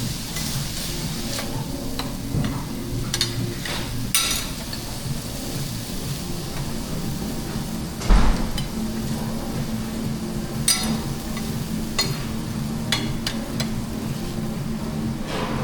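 Food sizzling on a teppanyaki flat-top griddle while metal spatulas clack and scrape against the steel plate, with a heavier knock about eight seconds in.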